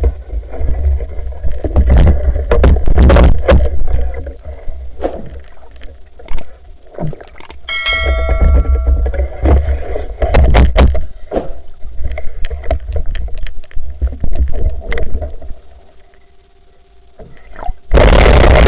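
Underwater camera audio of a night spearfishing dive: a low water rumble with scattered clicks and knocks. About eight seconds in comes a short bell-like chime from an edited-in subscribe-button animation. A loud burst of noise comes near the end.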